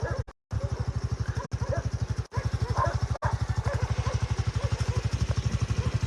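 Small engine running steadily at low revs, with a rapid, even pulsing, as of a slow-moving motorbike.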